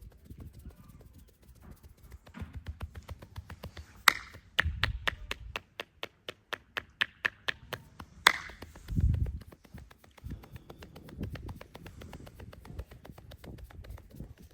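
Hands massaging a person: low rubbing, then about four seconds of quick, even hand taps, about five a second, opened and closed by two louder sharp cracks.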